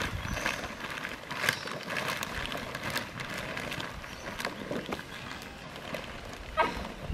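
A litter of eight-week-old Belgian Malinois puppies scuffling and tugging in a pile, with scattered sharp clicks and a brief high yelp about six and a half seconds in.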